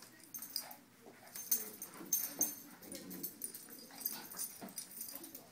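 Two Shih Tzus play-fighting, making short, irregular vocal noises, with many quick sharp clicks throughout.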